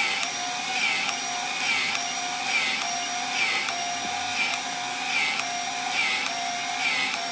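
Battery-powered grease gun running continuously under the trigger, its pump cycling a little faster than once a second. It is forcing grease into a water-filled air tank, raising the pressure for a hydrostatic test.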